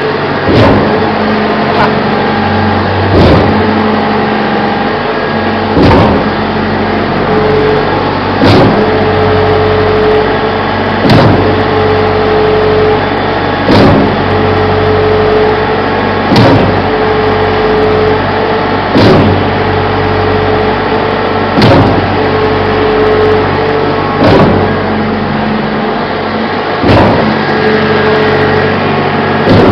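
Schwing SP750 concrete pump running after a slewing-cylinder reseal: a steady engine and hydraulic drone with a pitched whine, broken about every two and a half seconds by a loud bang as the slewing cylinder throws the S-tube valve over at each pumping stroke, twelve times in all.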